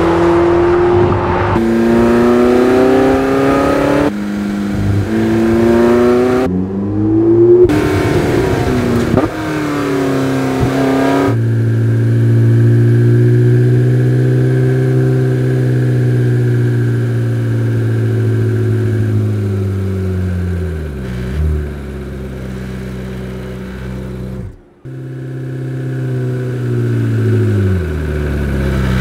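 Porsche 918 Spyder's V8 revving up and down through gears in a series of short cuts, then holding a long steady high-revving pull. Near the end the engine note falls as the car slows, after a brief break.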